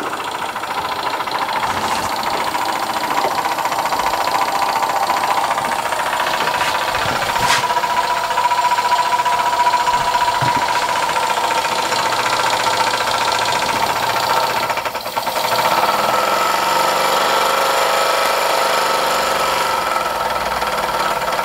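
Scratch-built oscillating model steam engine running fast and steady under steam, a rapid, even chuffing over the hiss of its butane gas burner. The sound dips briefly about two-thirds of the way through, then carries on at a slightly different pitch.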